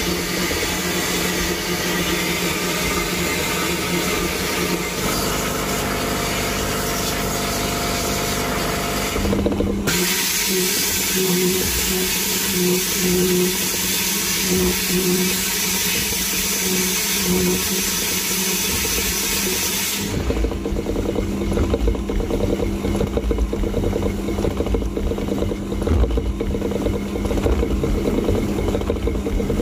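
Vapour blasting cabinet at work: the gun sprays a slurry of water and abrasive media with compressed air onto engine castings, a steady hiss over a constant machine hum. About ten seconds in the sound changes to a thinner, higher hiss, and about twenty seconds in it gives way to a low rumbling machine noise.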